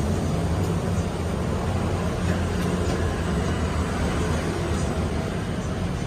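Steady low ambient rumble with no distinct events.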